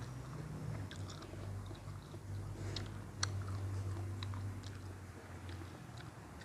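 A person chewing food close to the microphone, with scattered small crunching clicks, the sharpest about three seconds in, over a low steady hum.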